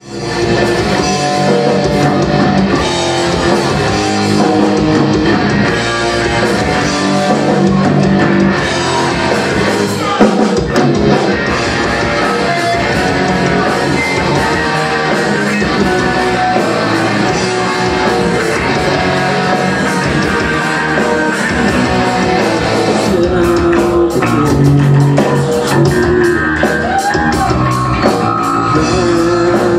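A rock band playing live: electric guitars, bass and drum kit with vocals, the cymbals coming through more strongly about two-thirds of the way in.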